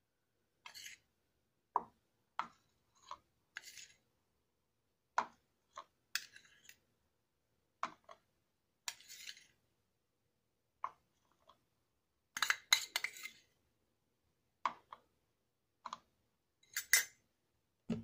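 Metal spoon clinking and scraping against a steel bowl as ground coffee is scooped out: a string of short separate clinks, a few of them drawn out into scrapes.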